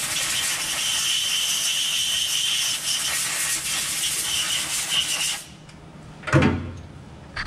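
Steady hissing, rubbing noise of a freshly threaded steel bushing being given a quick clean-off. It stops suddenly about five seconds in, and a single loud knock follows about a second later.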